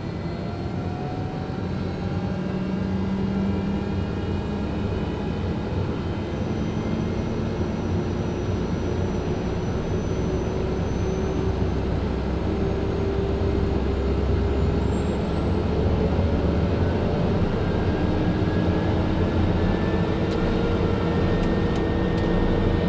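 Turbine aircraft engine running, with a steady whine and a low hum. Several of its tones climb slowly in pitch, as when a turbine spools up.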